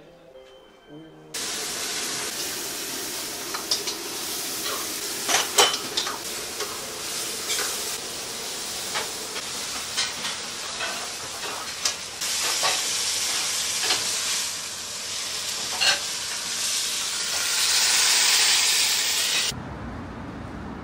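Food sizzling and hissing in a wok as a chef stir-fries it, with sharp clicks and clanks of metal on the wok throughout. The sizzle swells loudest near the end, then cuts off to a lower steady street hum.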